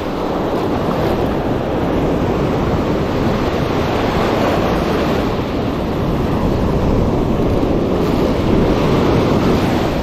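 Ocean surf washing up the beach, a continuous rush of breaking waves and foam, with wind buffeting the microphone.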